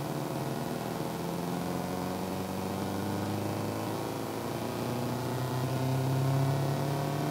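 Synth rise from Logic's ES1 synthesizer: a raw oscillator tone held and slowly bending upward in pitch. It runs through a Sonalksis TBK2 bitcrusher set to a dirty 'grime' mode, which makes it a gritty, buzzy drone.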